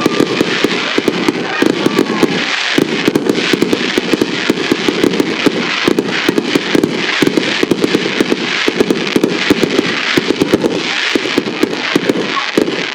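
Fireworks going off in rapid succession: a dense, unbroken crackle of many small bursts, with louder pops scattered throughout.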